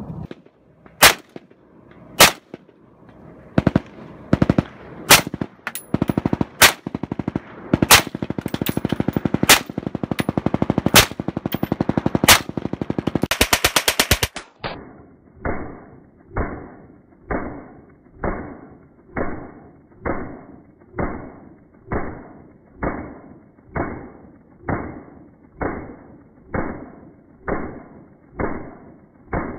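Gunfire: heavy single shots about once a second from a large gun, with rapid automatic fire under them, ending in a fast full-auto burst. About halfway through comes a slowed-down slow-motion recording of submachine-gun fire: dull, muffled shots about one a second, each fading out slowly.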